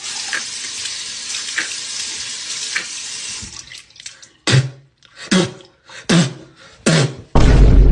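Water running, like a tap into a sink, as a steady hiss. Then come four short loud bursts of noise about a second apart, and a louder rush near the end.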